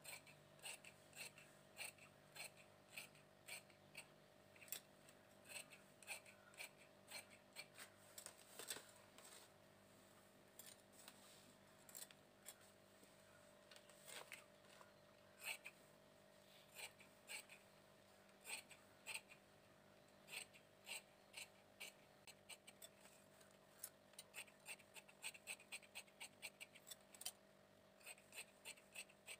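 Large tailoring scissors snipping through cotton fabric as it is cut into long strips: a faint, quick run of short blade snips, about two to three a second, with brief pauses.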